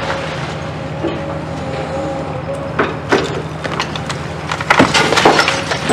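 Demolition excavator's diesel engine running steadily while its grapple tears building material away. Cracks and crashes of breaking, splintering debris start about three seconds in, loudest near five seconds.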